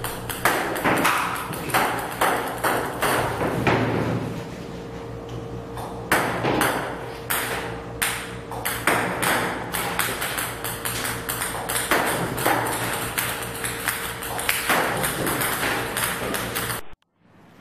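Table-tennis balls fired by a table-tennis robot bouncing on the table in a rapid, irregular stream of sharp clicks, over a steady hum.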